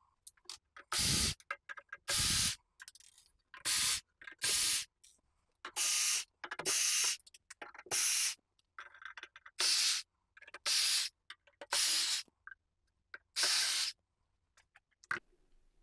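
Cordless drill spinning screws out of a server rack battery's metal case in short bursts, about eleven half-second runs of the motor with pauses between them.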